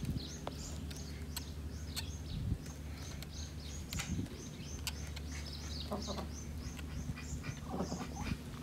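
Ducks calling repeatedly with short, high chirping calls throughout and lower quacks near the end, over a steady low hum. A few sharp knocks come from a butter knife being worked into a piece of wood.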